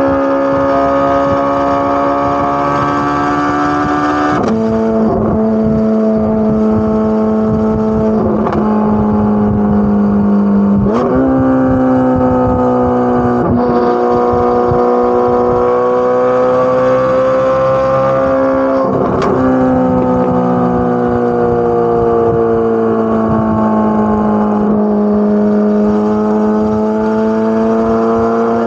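Chevrolet Corvette C8 Z06's flat-plane-crank V8 exhaust holding a steady droning note at mid revs. The pitch drops about four seconds in, then shifts a few more times with brief swoops as the revs change.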